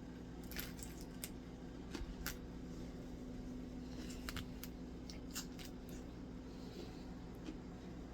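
Eating crunchy peanut butter: scattered small crunches and mouth clicks in a few clusters, over a steady low hum.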